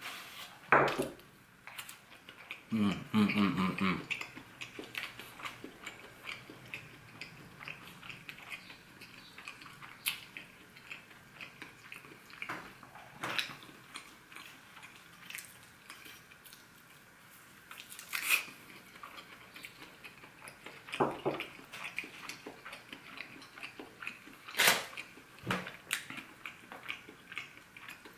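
Eating sounds from a deep-fried corn dog: scattered crunchy bites and chewing, with light clicks and clinks of tableware as the battered corn dog on its wooden skewer is dipped into a small glass bowl of sauce. There is a brief vocal sound about three seconds in.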